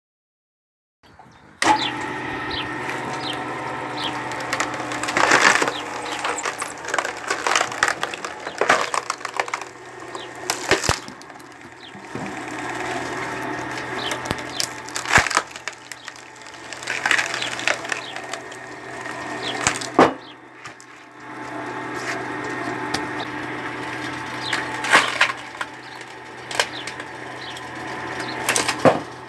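Screw log splitter's threaded steel cone turning and boring into a pine round, the wood crackling and splintering as it is forced apart, with several sharp cracks over the steady running of the drive. The sound starts after about a second and a half of silence.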